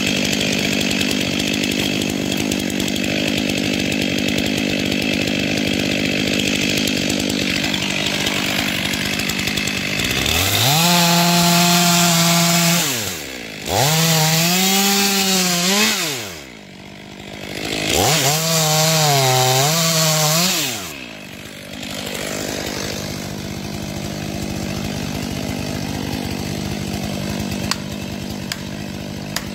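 Stihl MS500i two-stroke chainsaw cutting into a tree: three loud full-throttle bursts in the middle, with the engine pitch sagging and recovering under load and dropping back between cuts. Before and after them a steadier engine drone runs at a lower level.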